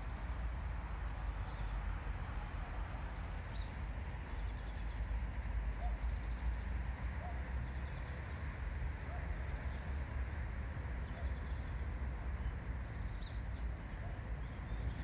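Outdoor field ambience: wind rumbling on the phone microphone, with a few faint bird chirps now and then.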